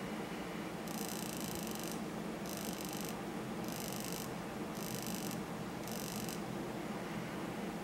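Male Phidippus arizonensis jumping spider's courtship buzzing: the pedipalps vibrate against a dry leaf, giving five short high-pitched buzzes about a second apart. A steady low hum runs underneath.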